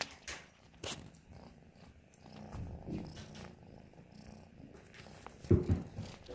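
Kitten purring close to the microphone, a low pulsing rumble, with clicks and brushing of the phone against its fur and a loud low bump about five and a half seconds in.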